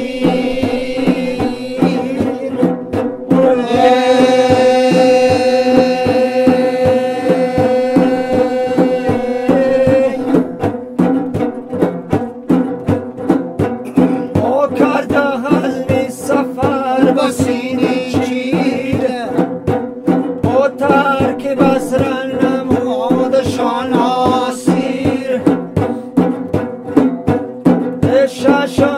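Tajik maddo from the Pamirs: men sing devotional poetry in long held lines. A large frame drum beats a steady rhythm under plucked long-necked lutes.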